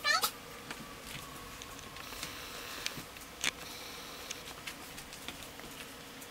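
Quiet room with a few faint clicks and soft rustles as a cat flops down and rolls on carpet. The tail of a high-pitched voice is heard right at the start.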